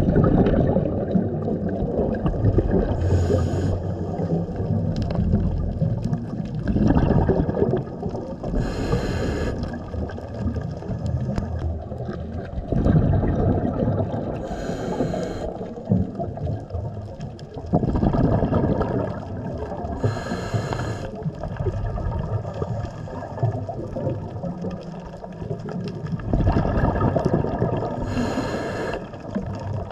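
Muffled underwater water noise picked up by a submerged camera, a steady low rumble and swish. About every five to six seconds comes a short hiss, in the rhythm of a swimmer's breathing.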